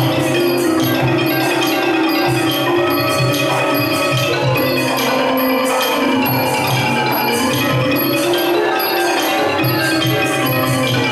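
Thai piphat ensemble playing: ranat xylophones running a steady stream of mallet notes over ringing gong circles, kept in time by a low drum beat.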